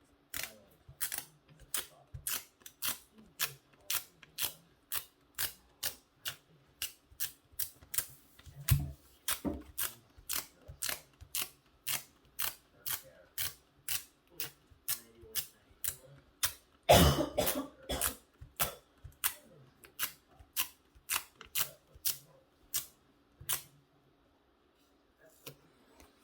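A steady run of light, sharp clicks, about two or three a second, with a louder knock about 17 seconds in; the clicks stop shortly before the end.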